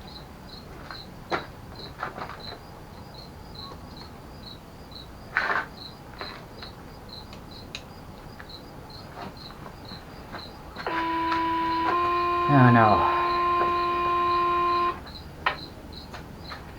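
Fire department pager sounding a two-tone alert: a short first tone for about a second, then a longer second tone for about three seconds, the tone-out that precedes a dispatched pager test. Crickets chirp steadily throughout, with a few light knocks.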